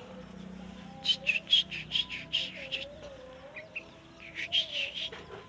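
Sooty-headed bulbul (trucuk) singing in two quick runs of short, bright notes, with a rooster crowing faintly in the background.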